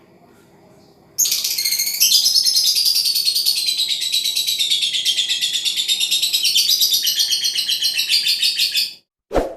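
Lovebird singing one long, very fast chattering trill, high-pitched, starting about a second in and cutting off abruptly some eight seconds later. A brief low sound follows near the end.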